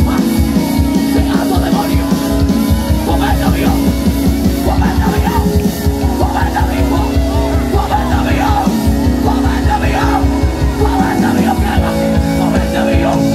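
Live worship band playing loud amplified music, with electric guitar and drums over a steady beat.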